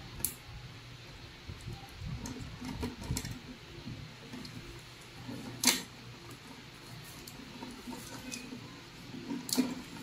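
Soft, irregular handling noises of pliers, a utility knife and insulated copper wire as insulation is stripped from the wire, with a sharp click a little past the halfway point and a smaller one near the end.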